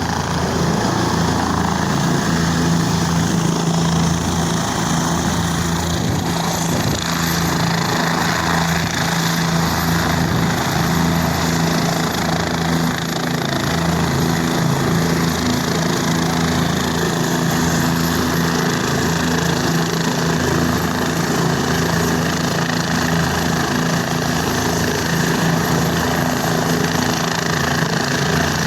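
Helicopter running close by: steady, loud rotor and engine noise with a deep hum. A high whine dips slightly in pitch about six seconds in.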